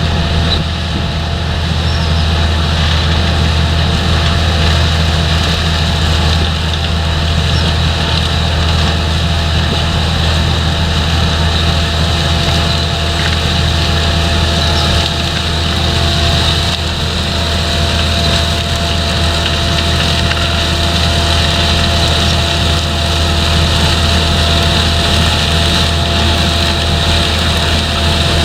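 Heavy farm machinery working a potato harvest: a diesel engine's deep, steady drone with a constant high whine over it, running evenly throughout.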